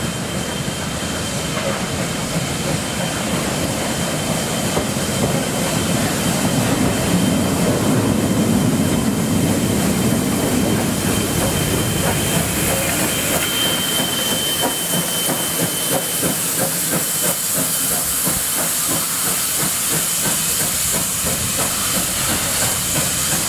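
NSW 59 class 2-8-2 steam locomotive 5917 running slowly into a station platform and coming to a stop, with steam hissing. Its low rumble is loudest about eight to ten seconds in, as the engine passes close by, then a steady hiss continues with a fast pulsing beat.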